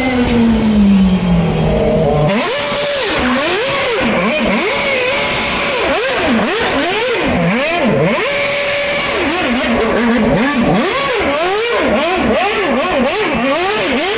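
Red Bull Formula 1 car's engine revving hard in quick rising and falling sweeps as the car spins donuts, the rear tyres spinning and smoking. For the first couple of seconds the engine note falls away as the car runs past.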